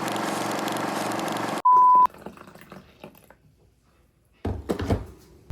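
Background music cuts off abruptly, then a single loud, steady electronic beep lasts under half a second. Soft knocks and handling noise follow near the end.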